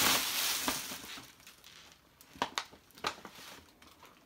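Tissue paper rustling and crinkling as it is pulled out of a paper gift bag, loudest in the first second and then fading. A few short, sharp crackles follow a little before the end.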